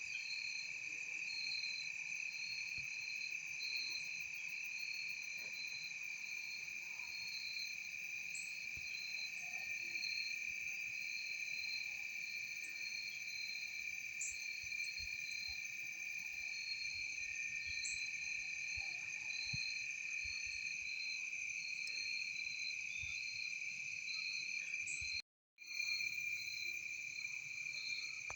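Steady chorus of crickets and other insects: several high, unbroken trills layered with a faster pulsing one. It breaks off for about half a second near the end.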